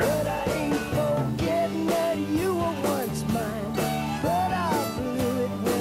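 Background music: a band piece with steady held bass notes under a melody that slides up and down in pitch.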